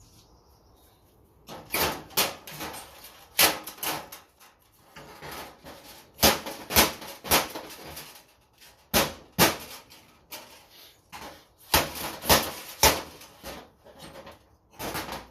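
Repeated sharp knocks and clatter, irregularly spaced, from a fluorescent light fixture being taken apart by hand. They begin about a second and a half in.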